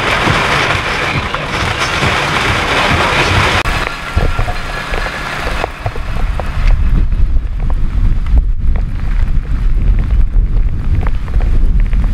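Heavy storm rain pouring down with wind noise. Partway through the sound changes abruptly to strong gusts buffeting the microphone in a deep, uneven rumble, with scattered taps of raindrops.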